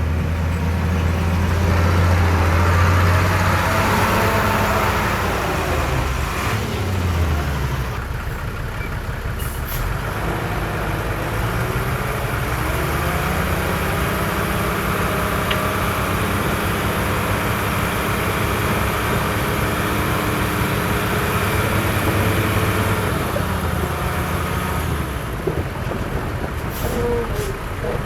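Heavy diesel earthmoving machinery running under load, its engine dropping in pitch about six seconds in and climbing again about eleven seconds in.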